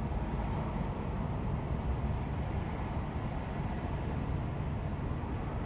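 Steady low rumble of roadside background noise, even throughout with no distinct events.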